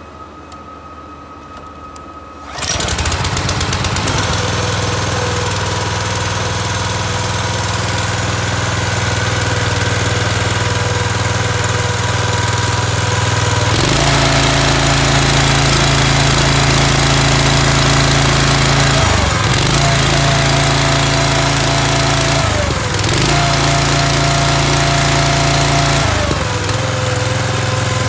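Honda GX single-cylinder four-stroke petrol engine starting about two and a half seconds in, then running steadily. From about halfway it runs louder and deeper, and its speed dips briefly three times, settling a little lower after the last dip.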